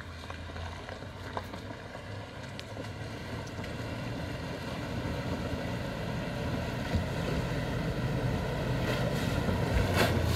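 Range Rover Sport wading slowly through a muddy trail puddle toward the microphone: its engine runs low and steady while water washes around the wheels, both growing steadily louder as it approaches, with a stronger rush of water near the end.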